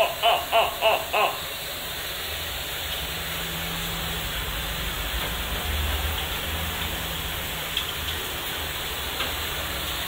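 Water rushing steadily through a water-purifier system, with a low hum underneath.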